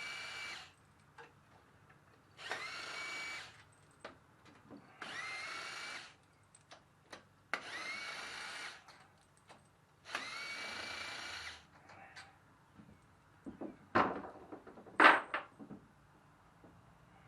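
Power drill spinning bolts out of a Honda GX620 engine's front cover: five runs of about a second each, the motor's whine rising and then holding, with short pauses between. Near the end come two sharp knocks, the loudest sounds here.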